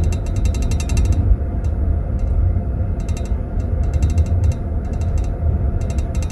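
Steady low rumble of a passenger train's wheels and carriage running along the track, heard from inside a sleeping-car compartment. Over it a teaspoon rattles in a tea glass in its metal glass holder in quick chattering spells, the longest in the first second.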